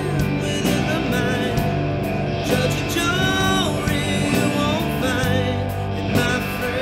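Background rock music with guitar and a singing voice.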